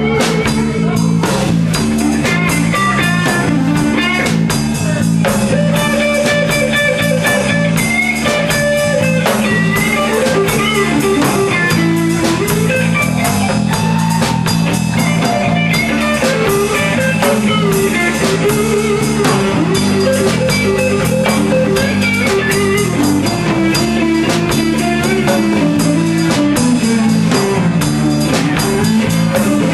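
Live rock band playing: an electric guitar lead line over bass guitar and a drum kit.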